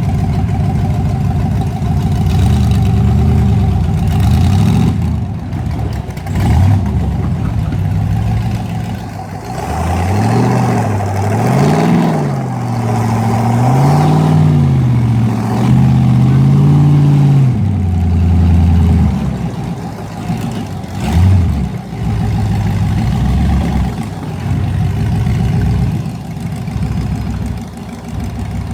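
Engine idling, then revved several times, its pitch rising and falling, before settling back to idle.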